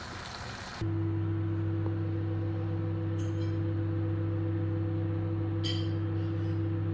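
A steady low electrical hum starts abruptly about a second in and holds steady, with two light clinks, one about three seconds in and one near the end.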